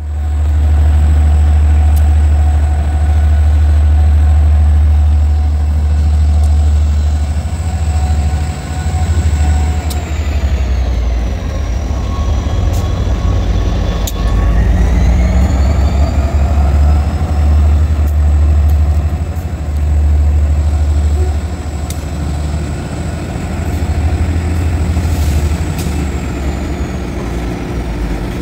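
CSX diesel freight locomotives passing close at slow speed, their engines running with a heavy, steady low rumble and a faint high whine that dips in pitch about ten seconds in and again near the end. The train of open hopper cars then rolls by behind them.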